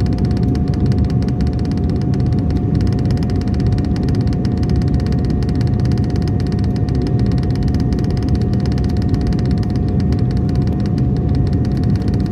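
Airliner cabin noise in flight: a steady low roar of engines and airflow, with one steady whining tone held through it.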